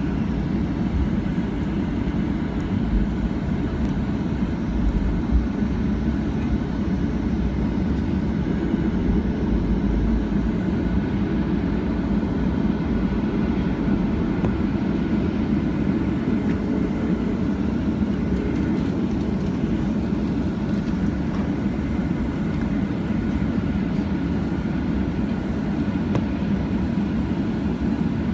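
Steady cabin noise of a Boeing 737-800 taxiing, heard from a window seat beside the wing: its CFM56-7B turbofan engines running at low taxi thrust, a continuous low rumble with a faint steady whine above it.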